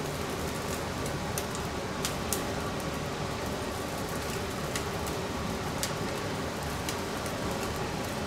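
Straw fire flaring under a wire grill as a bonito fillet is seared: a steady rush of flame with scattered sharp crackles and pops.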